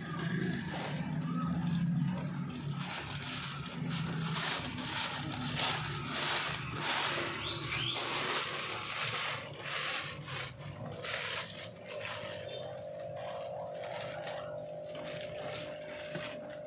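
Clear plastic bags rustling and crinkling as they are handled in shallow water. A steady hum-like tone comes in about two-thirds of the way through.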